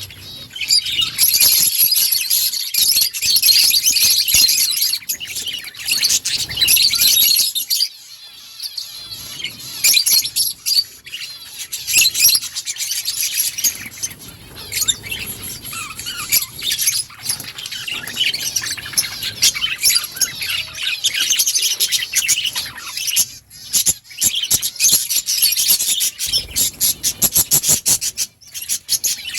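Budgerigars chirping and chattering in rapid, dense calls, with a brief lull about 8 seconds in.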